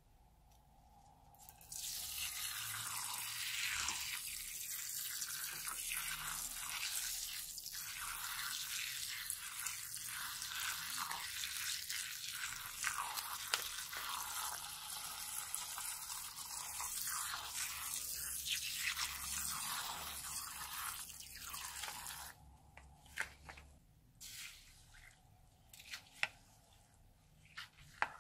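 Liquid slime streaming out of a cut balloon onto a dish of foam beads, a steady hissing patter for about twenty seconds. It stops suddenly, and a plastic spoon then stirs the beads into the slime with scattered crunchy crackles.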